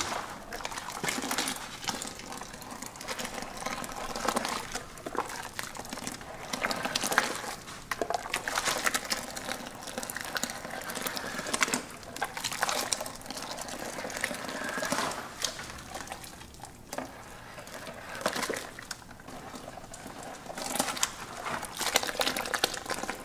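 Hot sulfur mixture being scooped with a plastic ladle and poured back over the inside wall of a plastic tub: irregular splashing and trickling with occasional knocks of the ladle against the tub. The liquid washes stuck sulfur down off the tub wall so that it melts.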